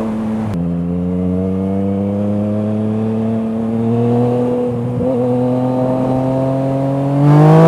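Yamaha MT-09's three-cylinder engine through an Akrapovič exhaust, under way. The revs drop sharply about half a second in, as on an upshift, then climb slowly under steady throttle. Near the end the throttle opens harder, and the exhaust gets louder as the revs rise quickly.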